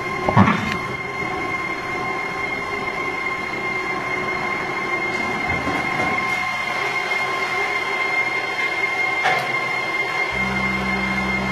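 Colour sorting machine for fresh leafy vegetables running with a steady mechanical whine and several constant high tones. A brief thud comes about half a second in, and a deeper steady hum joins about ten seconds in.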